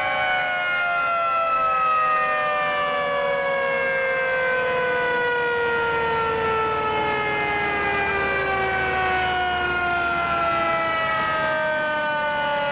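Fire truck siren winding down, its pitch falling slowly and steadily, as a mechanical siren does when coasting to a stop. Another siren tone crosses it near the end.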